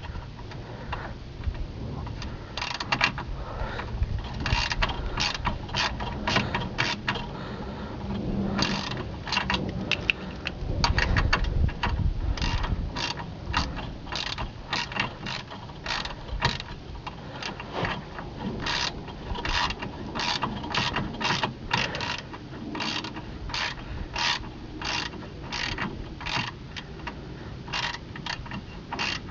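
Hand ratchet wrench with an 8 mm socket clicking through stroke after stroke as a nut is undone, the clicks coming about twice a second in the second half.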